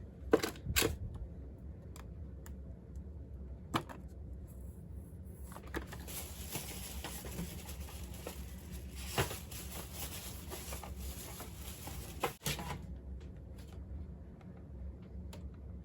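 Diecast car packages being handled: scattered sharp clicks and knocks, with a longer stretch of rustling from about six seconds in to near the end.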